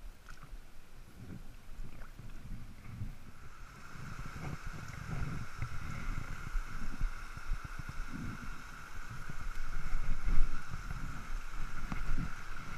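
Small mountain stream running over rocks and a little cascade, a steady rush that comes up about three seconds in, under an uneven low rumble of wind and handling noise on the microphone that peaks about ten seconds in.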